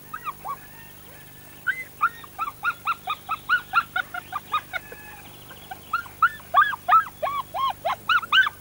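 Husky puppies yipping and whining: many short, high, arching calls from several pups, overlapping at several a second, with a brief lull about a second in.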